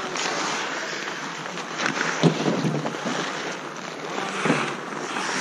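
Ice skate blades scraping and hissing on an outdoor rink during a hockey game, with a few sharp clacks of sticks and puck, the loudest about two seconds in.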